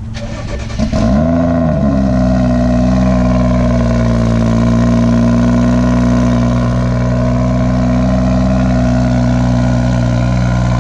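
BMW X4 M40i's turbocharged inline-six starting about a second in, with a brief flare of revs that rises and falls, then settling into a steady idle.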